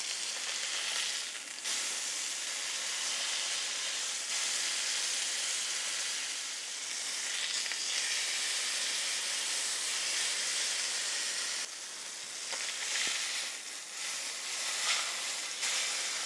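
A piece of veal searing in a hot oiled frying pan: a steady, hissing sizzle that drops briefly a few times as the meat is turned onto another side with tongs.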